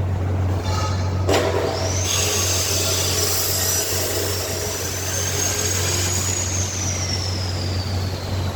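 Steady low machine hum with a high-pitched whine that spins up just after a click about a second in, holds, and slowly winds down in pitch over the last couple of seconds.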